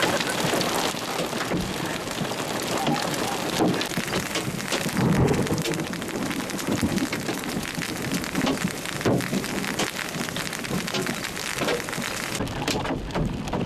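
A hailstorm: a steady rush of rain, with many sharp ticks of small hailstones striking grass and wet pavement.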